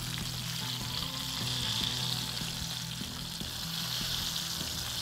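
Chicken wings sizzling as they fry in hot oil in a pan, a steady hiss of the water inside the meat cooking off, with a few light taps of tongs against the pan.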